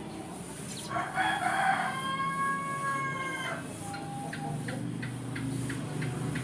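A rooster crows once, starting about a second in and lasting about two and a half seconds. After it, a small bird gives a run of short, high chirps, several a second, over a low steady background hum.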